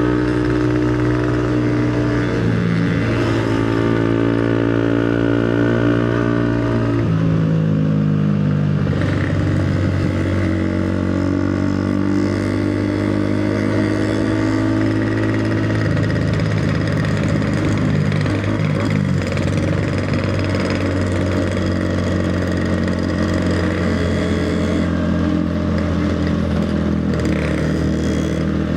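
Motorcycle engine running under way, its pitch stepping up and down several times as the revs change.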